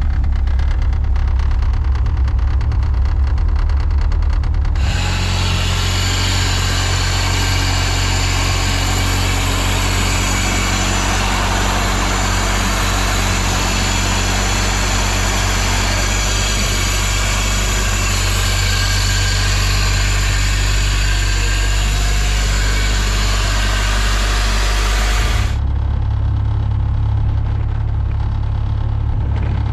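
Turbocharged Honda K24 four-cylinder engine running at a steady idle, heard in separate clips with the sound changing abruptly about five seconds in and again near the end.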